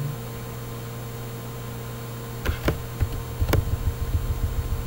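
Steady electrical hum, joined about halfway through by a run of computer keyboard key clicks: a few separate taps, then quick repeated presses, as the cursor is stepped back along a command line.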